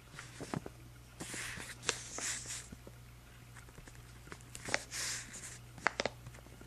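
Pen scratching on journal paper in two spells of writing strokes, with light clicks and taps between them, over a faint steady hum.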